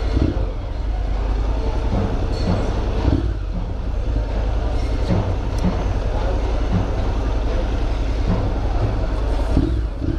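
Motorcycle engine running at low speed in slow street traffic, a steady low rumble, with street noise and some voices around it.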